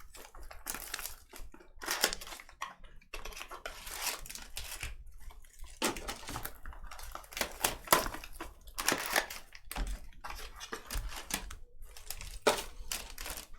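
Trading-card packaging being handled: plastic wrap and cardboard crinkling and tearing in irregular rustles as a box of cards is opened and sorted.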